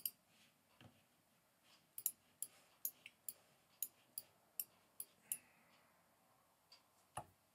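Faint, irregular computer clicking: about a dozen separate clicks spread over several seconds, with near silence between them.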